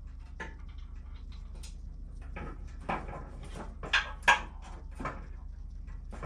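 Metal tools being handled while working at a hose clamp with hose clamp pliers: a series of small clicks and knocks, two sharper clacks about four seconds in, over a steady low hum.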